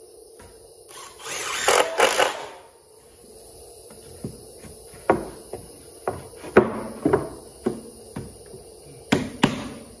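A cordless driver runs a screw into pressure-treated lumber for about a second and a half, then a string of sharp wooden knocks as boards are set down and shifted onto the frame, with two louder knocks near the end.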